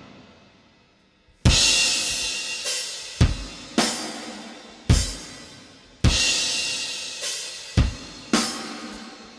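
Playback of a slow, heavy metal drum kit recording. About 1.5 s in, kick drum hits begin, roughly one a second, mostly paired with crash cymbals that ring out and decay between strokes. The kick has been tightened with soothe2, cutting around 500 Hz in time with each kick hit.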